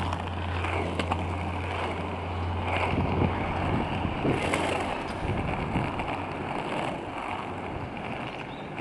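Skateboard wheels rolling over street asphalt, a steady rumble, with wind buffeting the microphone.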